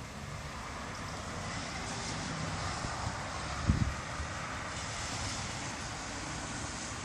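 A steady rushing of passing traffic mixed with wind, swelling gently and easing again, with a brief low bump of wind on the microphone about halfway through.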